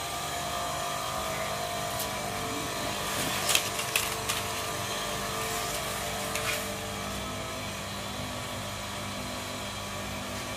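StarQ W3 pressure washer motor and pump running steadily with a constant hum, as air is bled out of the line on start-up. There are a few short, sharp spits about three to four seconds in and again at about six and a half seconds.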